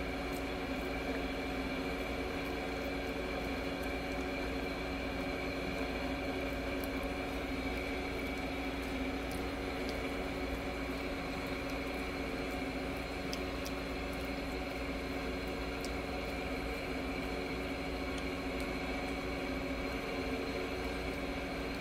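Steady mechanical hum holding several fixed tones over a low rumble, like a motor or appliance running in a small room, with a few faint clicks scattered through it.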